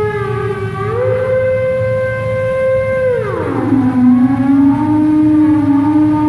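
Steam whistle playing a slow tune, holding pitched notes and sliding smoothly up and down from one note to the next.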